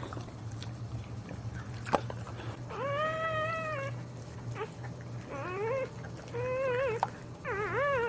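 A dog whining during whelping: four high-pitched cries, the first held for about a second, the last three shorter and wavering up and down. A sharp click comes about two seconds in.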